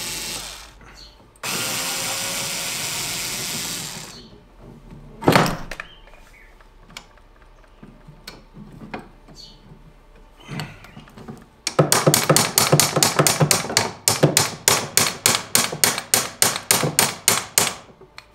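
Cordless drill/driver running on a screw in two short bursts, the second about two seconds long. A loud knock follows, then small handling knocks. Near the end comes a fast, even run of ratchet-like clicks, about five a second for some six seconds.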